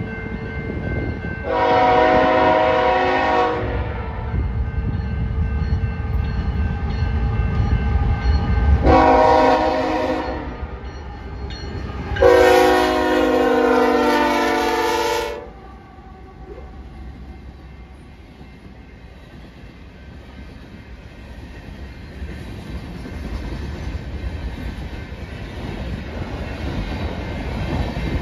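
Diesel locomotive air horn on a BNSF coal train sounding three blasts for a grade crossing, the last the longest at about three seconds, over a low engine and rail rumble that builds as the train nears. After the locomotives pass, coal hopper cars roll by with a steady, quieter wheel-on-rail rumble and clatter.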